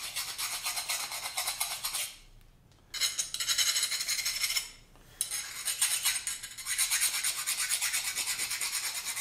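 A 65 HRC file drawn quickly back and forth across the edge of a freshly quenched mosaic Damascus blade, testing its hardness: fast rasping strokes of steel on steel, about six a second, stopping briefly twice.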